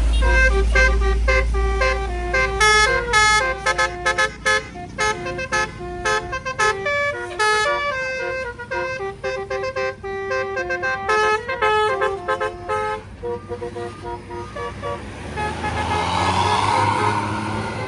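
Tour bus's basuri musical horn playing a quick tune of short, clipped notes for about thirteen seconds, over the low rumble of the bus engine. A rush of noise follows near the end.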